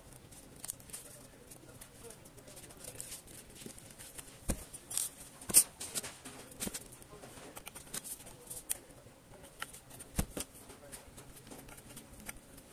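Plastic parts of a mini projector being handled and snapped together by hand: scattered clicks and knocks, the sharpest near the middle.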